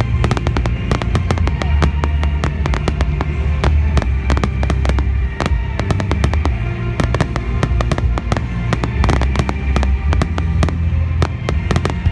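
Fireworks going off in rapid succession: many sharp crackling pops over a deep rumble of bursts, with music playing underneath.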